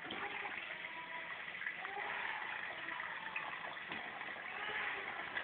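Kitchen tap turned on, its stream pouring steadily into a bowl that is filling in a stainless steel sink.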